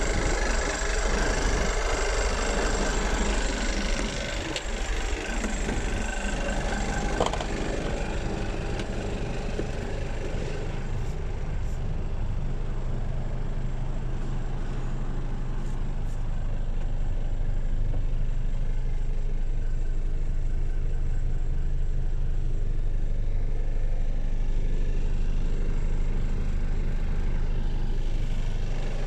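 Mercedes Actros 2548 tractor unit's diesel engine idling steadily. About ten seconds in, the engine is heard from inside the cab, lower and duller.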